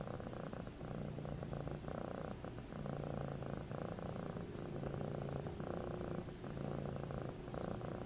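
Domestic tabby cat purring steadily, the purr swelling and fading with each breath in and out, about once a second.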